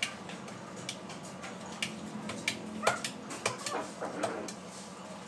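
A dog whimpering, a few short whines about three to four seconds in, over a faint steady hum and light clicking.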